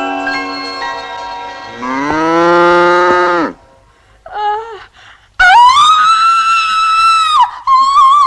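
Piano notes ringing out, then a cow mooing once, rising in pitch, about two seconds in. About five seconds in, a woman's long high-pitched shriek, the loudest sound.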